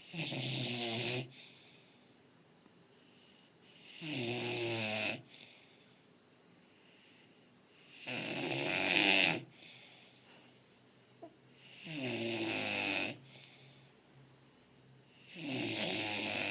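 English bulldog snoring in its sleep: five regular snores, one about every four seconds, each lasting about a second, with the middle one the loudest.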